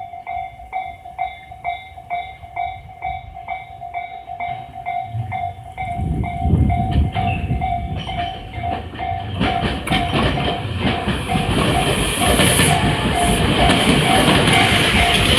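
Japanese level-crossing warning bell ringing about twice a second. From about six seconds in, the electric train set 31614F approaches and runs over the crossing. Its rumble grows into loud wheel-and-rail clatter and hiss by the end, with the bell still ringing.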